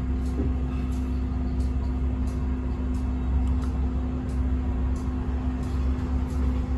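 Sheffield Supertram light-rail tram heard from inside the passenger saloon while running along street track: a steady low rumble with a constant hum. A faint tick comes about every two-thirds of a second.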